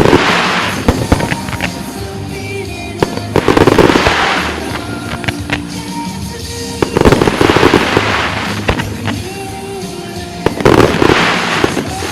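Aerial fireworks bursting in four loud waves about every three and a half seconds, each wave a dense spray of crackling reports, with music playing under them.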